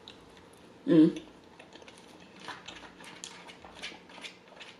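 Close-miked eating: chewing a mouthful of soft tater tots, with faint, scattered mouth clicks and small clicks of a plastic fork in the paper tray. A short vocal sound comes about a second in.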